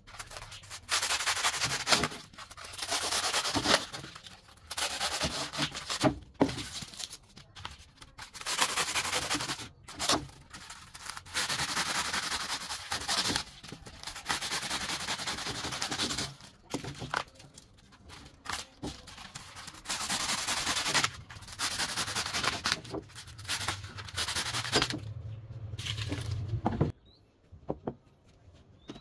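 Hacksaw cutting through blocks of polystyrene foam: a dry rasping in repeated bouts of one to three seconds with short pauses between, and a few light knocks. It stops about two seconds before the end.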